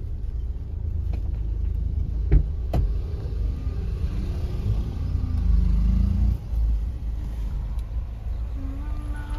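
Car engine idling at a standstill, a steady low rumble heard from inside the cabin, with two sharp clicks close together about two and a half seconds in.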